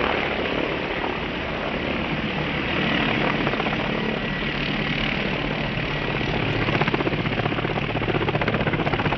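Helicopter rotor and engine noise, a steady whooshing drone with a fast rotor flutter that grows more distinct in the second half.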